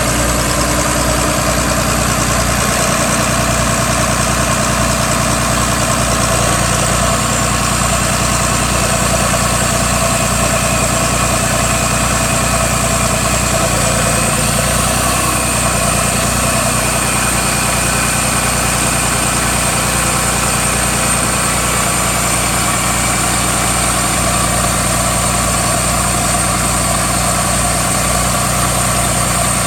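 Northern Lights M6108 marine diesel generator set running steadily at a constant speed, with a faint high whine over the engine sound.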